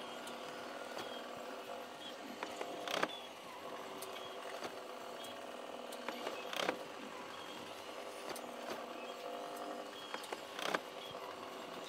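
Motorised 'snoring hare' Easter display figure running: a steady motor hum with creaking from its mechanism, and a short rushing noise about every four seconds as the figure's snore cycle repeats.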